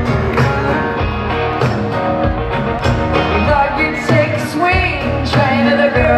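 A country band playing live, with a woman singing lead over drums and guitars. It is loud and recorded from among the audience.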